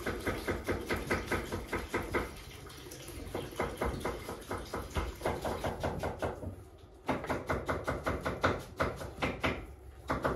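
Rapid, sharp knocking, about six strikes a second, pausing briefly twice.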